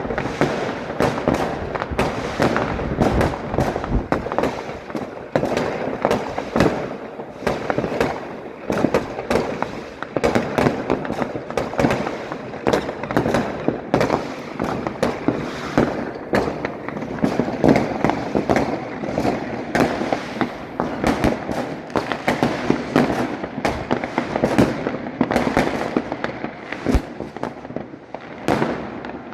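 Fireworks going off in a dense, continuous barrage: rapid cracks and bangs over a steady crackle.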